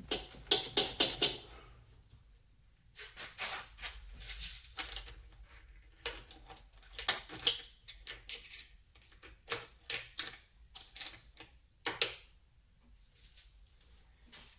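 Hand ratchet clicking in several short bursts of rapid clicks, with pauses between, as bolts are worked on the engine.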